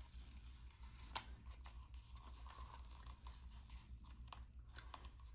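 Faint handling of planner paper: light rustling with a few soft clicks and taps, the clearest about a second in and a couple more near the end, over a steady low hum.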